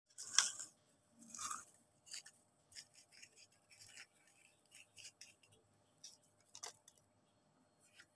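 Cardboard scraps scraping and rustling inside a homemade taped-cardboard garbage-truck model: irregular scratchy strokes, the two strongest in the first second and a half, then lighter scrapes and ticks.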